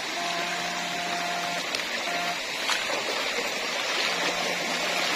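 Shallow stream running over rocks, with the electric hum of a homemade electrofishing stunner switching on and off: on for about a second and a half at the start, briefly after two seconds, and again near the end.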